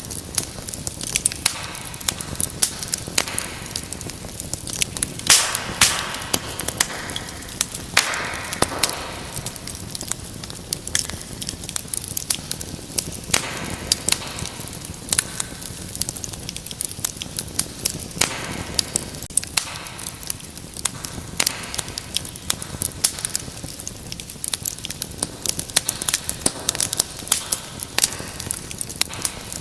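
Wood fire in a fireplace crackling steadily, with frequent sharp pops and snaps over a soft hiss of burning.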